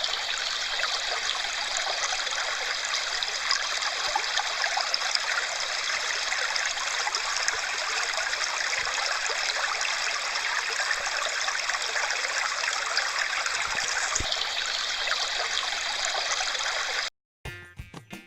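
Steady rush of running water, even and unbroken, that cuts off abruptly near the end; music starts just after.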